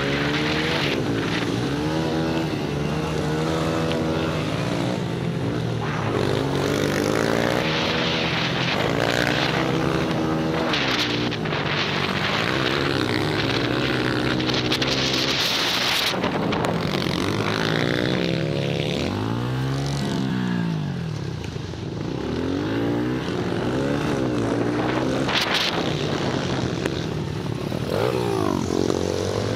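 Several pit bike engines racing, revving up and down and overlapping as the bikes ride the course. A steady low drone runs underneath.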